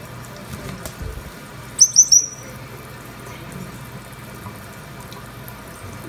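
Tap water running steadily from a faucet into a sink and over a bathing Congo African grey parrot. About two seconds in the parrot gives three quick, loud, high whistles in a row.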